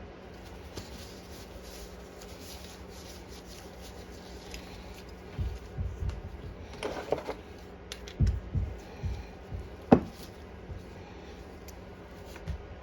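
Hands handling small parts: quiet at first, then several soft low knocks and a few light clicks, with one sharper click about ten seconds in, over a faint steady hum.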